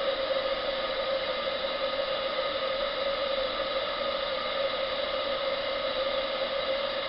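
Pendle Steam 28mm solid-brass butane burner running steadily under a model live-steam boiler: an even rushing flame noise with a constant hum. The boiler is heating and building steam pressure, with about 20 psi on the gauge.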